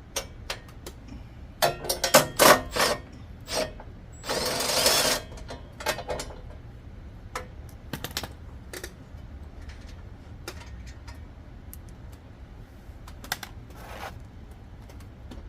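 A 12 mm socket and an 11 mm wrench working a nut off a metal belt cover: metal clicks and clinks, with a cluster of sharp clicks about two seconds in and a dense rattle lasting about a second around four seconds in, then scattered clicks.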